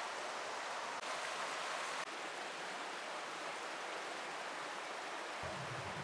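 Steady, even rush of a shallow stream flowing over the stony canyon floor. A low rumble joins near the end.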